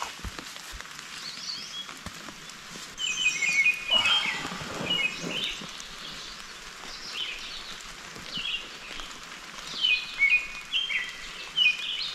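Songbirds singing repeated short chirping phrases over a soft, steady patter of light rain, with a brief louder noise about four seconds in.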